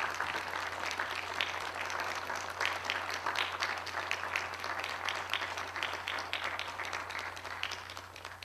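Audience applauding: dense clapping that thins out and fades near the end.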